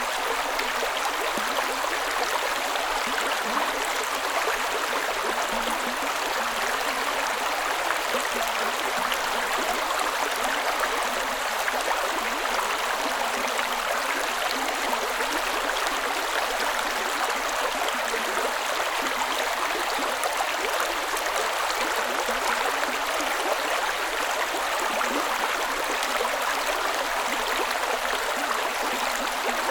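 Creek water running over rocks in a steady, even rush with a light gurgle.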